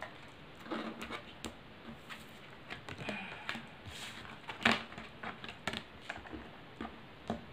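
Oracle cards being handled on a table: scattered soft taps and slides as cards are picked up and laid down, with one louder tap a little past halfway.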